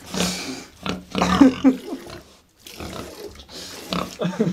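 Young pigs grunting in a series of short, rough calls, with a brief pause about two and a half seconds in.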